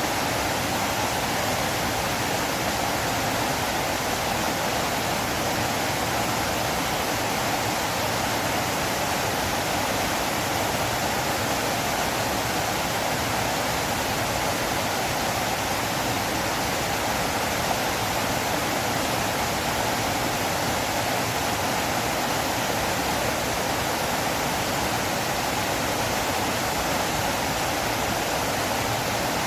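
River water flowing, a steady, unchanging rush.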